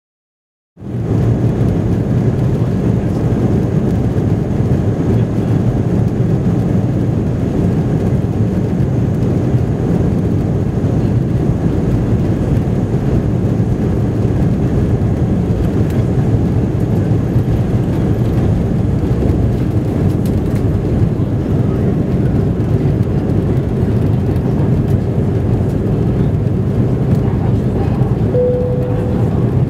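Steady, loud jet engine and airflow noise heard inside the cabin of an Airbus A319 airliner during takeoff and climb-out. It cuts in abruptly about a second in, and a short tone sounds near the end.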